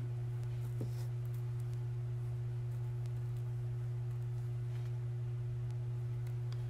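A steady low hum, one held tone with a fainter, higher tone above it, like electrical hum in the recording. A couple of faint light ticks come in about a second in, as sequins are handled on the table.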